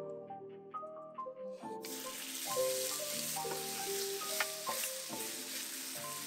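Strips of raw chicken breast sizzling in hot sunflower oil in a nonstick frying pan. The sizzle starts suddenly about two seconds in as the chicken goes into the oil, then holds steady while a wooden spatula stirs it with a few light clicks. Soft melodic background music plays throughout.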